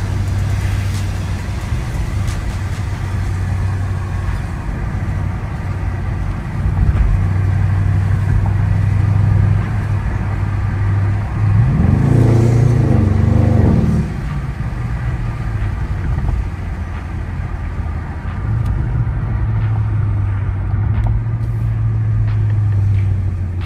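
Engine and road noise of a BMW heard from inside the cabin while driving at low speed, a steady low drone. About eleven and a half seconds in, the engine revs up in a rising pitch for a couple of seconds, then settles back to the drone.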